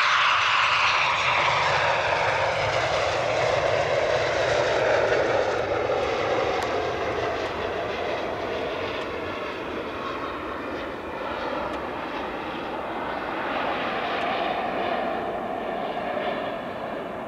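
Eurofighter Typhoon's twin EJ200 turbofans whining as the jet touches down and rolls out along the runway. The pitch falls over the first few seconds as it passes, then the sound steadies and gets quieter, swelling slightly again near the end.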